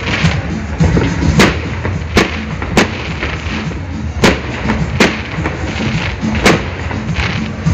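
Aerial fireworks shells bursting in a series of sharp bangs, about half a dozen spaced roughly a second apart, over a steady low rumble.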